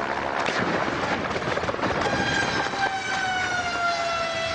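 Helicopter noise, rough and fluttering; about two seconds in, a steady whine starts and slowly falls in pitch.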